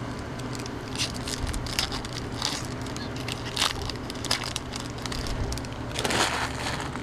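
Baseball trading cards being handled and slid against one another, a string of short papery scrapes and crackles with a longer rustle about six seconds in.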